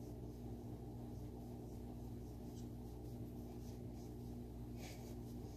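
Faint, steady low room hum, with a short, hissy breath near the end.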